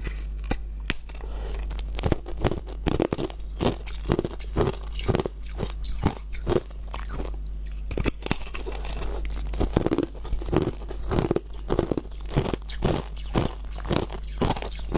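A person biting and chewing a large block of colored ice, with sharp, irregular crunches and cracks several times a second.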